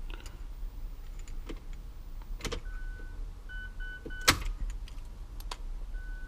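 A series of short electronic beeps at one steady pitch: one longer beep, three quick ones, and another longer one near the end. Several sharp clicks come between them, with one loud sharp knock about four seconds in.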